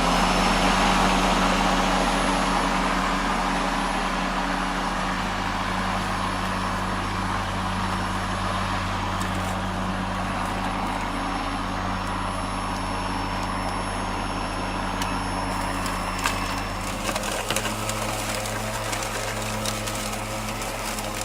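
Greenworks 80V brushless cordless lawn mower running at full speed with a steady electric whir and blade hiss, likely while mulching tall grass. It is loudest just after starting up, and its tone shifts about three-quarters of the way through, when scattered faint clicks and ticks begin.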